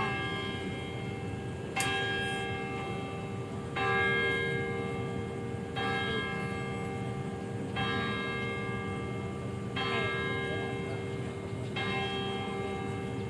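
Manila Cathedral's church bell tolling, struck about every two seconds, each stroke ringing on until the next.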